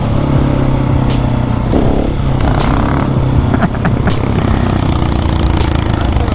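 Husqvarna 701's single-cylinder engine running under way, with wind and road noise; the engine note dips and picks up again around two seconds in. A sharp click repeats about every second and a half.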